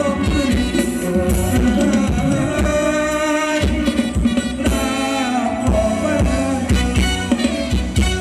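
Live Thai ramwong band music: a melody over drums and percussion keeping a steady beat.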